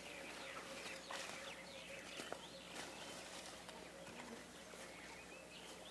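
Quiet African bush ambience: a few faint, short bird chirps over a steady faint insect drone, with scattered light clicks and rustles.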